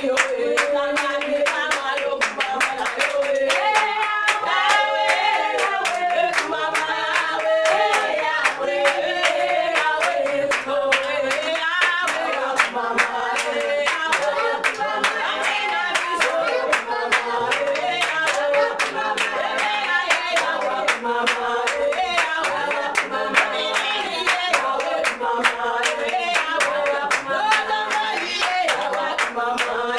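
Congregation singing a worship song while clapping their hands in a steady, even rhythm.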